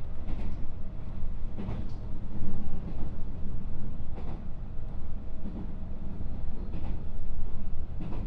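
Interior running noise of a JR West 221 series electric train, heard in the motor car: a steady low rumble of wheels on rail, broken by a few sharp knocks at irregular spacing.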